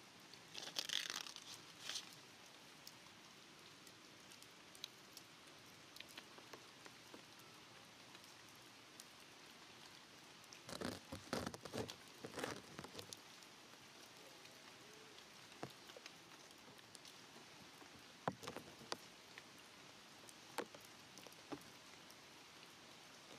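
Faint outdoor background: a steady low hiss with scattered soft crackles and taps, bunched in short clusters about a second in and around the middle.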